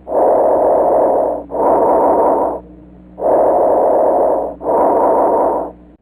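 Recorded lung sounds of an abnormal breath sound: two full breaths, each an inhalation followed almost at once by an exhalation of about equal length, with a pause between the breaths.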